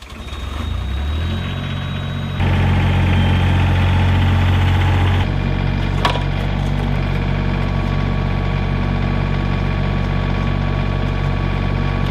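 Excavator engine starting up and running, the engine note stepping up about two seconds in and easing back a few seconds later. A single sharp knock or crack about six seconds in.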